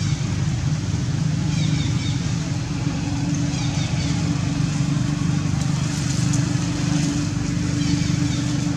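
A motor running steadily with a low, even hum. Short high chirps recur over it every second or so.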